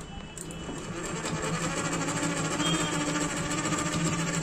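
Singer sewing machine running and stitching through folded cotton, a fast even run of needle-and-feed ticks over a steady hum, picking up speed over the first couple of seconds. With the needle now fitted the right way round, it stitches evenly and the thread holds.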